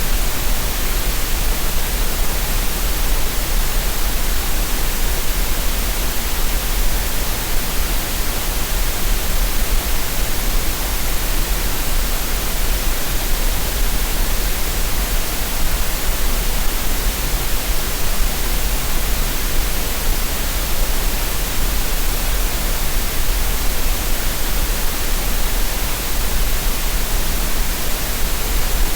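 Steady green noise, a synthetic relaxation noise: an even, unchanging hiss with no rhythm or events.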